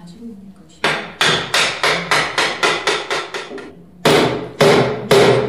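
Mallet striking the wooden legs and stretchers of a Windsor chair undercarriage to drive the joints home. A quick run of about ten blows at roughly four a second is followed, after a short pause, by three harder blows near the end.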